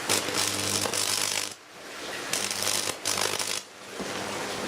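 Microwave oven transformer's high-voltage arc buzzing and crackling through a melting screwdriver, over a steady transformer hum. The arc drops out briefly twice and strikes up again.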